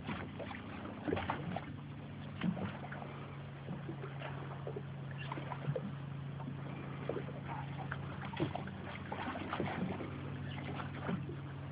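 Sounds aboard a small fishing boat at rest on the water: scattered small knocks and taps over a steady low hum.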